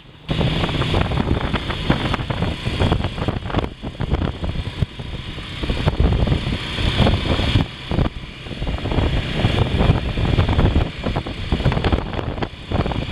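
Riding on a motorcycle: the engine is running under uneven, gusty wind noise on the microphone, with the rumble rising and falling.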